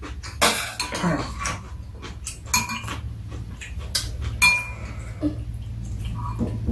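Metal spoons and chopsticks clinking and scraping against ceramic bowls as two people eat. There is a string of sharp clinks, several of them ringing briefly, over a steady low hum.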